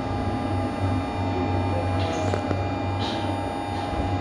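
Metro car standing at a station, its electrical equipment giving a steady low hum with a steady higher tone above it, and a few faint clicks about two to three seconds in.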